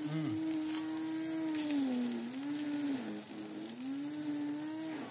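A small motor running with a steady drone, its pitch slowly dipping and rising.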